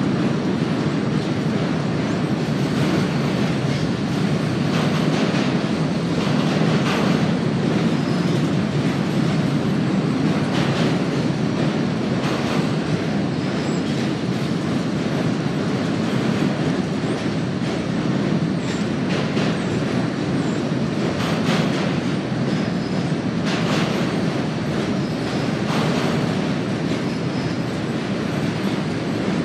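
Freight train of covered hopper cars rolling steadily across a steel truss bridge: a continuous low rumble with a light clack of wheels every couple of seconds.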